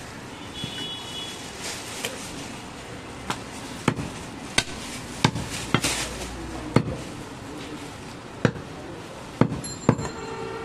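Heavy butcher's knife chopping goat leg meat down onto a wooden log chopping block: about eight sharp, irregularly spaced chops, most of them from about three seconds in.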